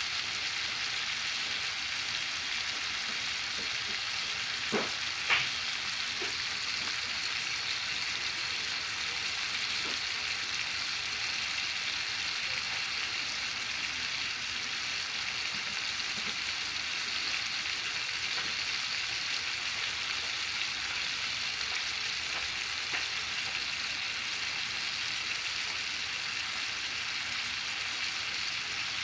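Slices of pork steak frying in their own rendered fat in a nonstick pan: a steady sizzle, with two sharp pops about five seconds in.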